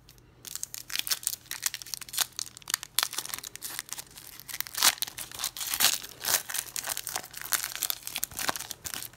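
Foil wrapper of a Panini Prizm football card pack crinkling and tearing as it is opened by hand, in a dense run of irregular crackles starting about half a second in.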